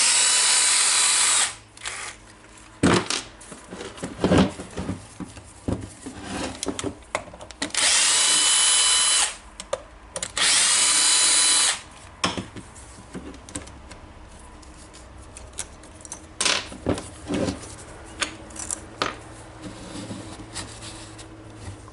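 Electric screwdriver driving screws in three short runs of about a second and a half each, its motor whine rising as it spins up. Clicks and knocks of parts being handled come in between.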